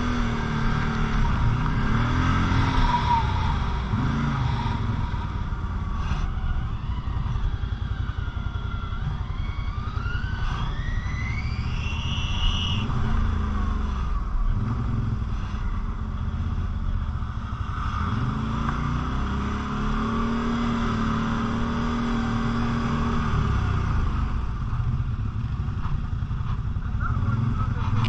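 Quad (ATV) engine running off-road, revving up and easing off again and again. About ten seconds in there is a long rising whine as it accelerates.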